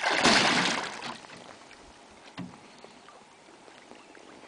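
Hooked northern pike thrashing at the surface beside the canoe: a loud splash at the start that fades over about a second. A faint knock follows about two and a half seconds in.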